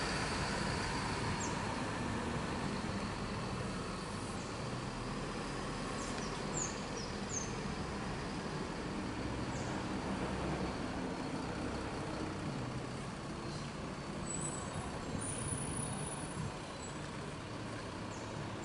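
A coach bus's diesel engine running as the bus pulls away and drives off, its low rumble slowly fading. A few faint short high chirps sound over it.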